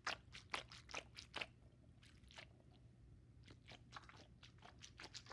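Pineapple-shaped squishy stress balls squeezed by hand, giving short crunchy squelches: a quick run of them in the first second and a half, two more a little later, then another run near the end.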